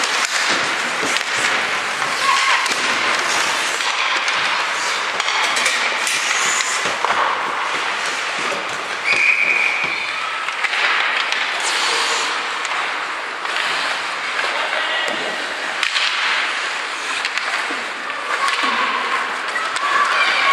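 Ice hockey play in an echoing rink: skates scraping the ice, with frequent sharp clacks of sticks and puck, over a constant wash of arena noise and scattered voices calling out.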